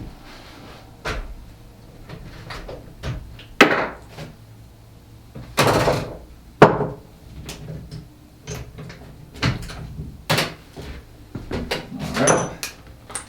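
Irregular knocks and clunks, about a dozen, from tools and a workpiece being handled and set in place, with a louder clatter around the middle. No steady run of an impact driver hammering.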